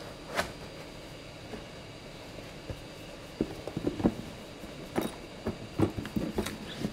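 Handling noise of a drone being boxed: a single click, then a run of short, irregular knocks and clicks in the second half as a cardboard box lid is fitted over the drone in its foam-lined box.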